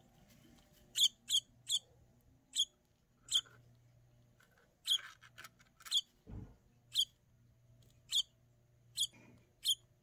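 Baby bird giving about a dozen short, high chirps while being hand-fed, some in quick pairs, with one dull bump about six seconds in.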